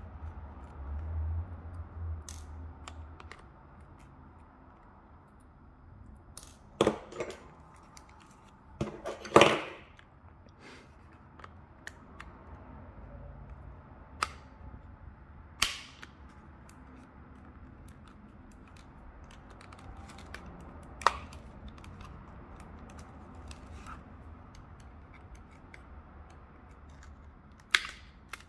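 Plastic case of a TI graphing calculator being pried apart with a thin flat pry tool: scattered sharp clicks and snaps as the case clips let go, the loudest about a third of the way in.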